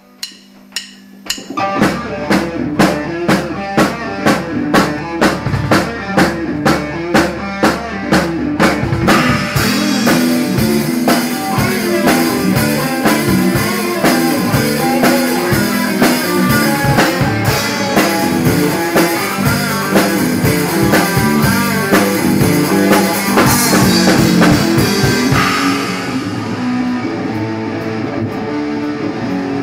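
Rock band playing a song intro on drum kit and guitar. It opens with evenly spaced drum strokes about two a second; from about nine seconds in the whole band comes in with cymbals crashing, and the cymbals drop out a few seconds before the end.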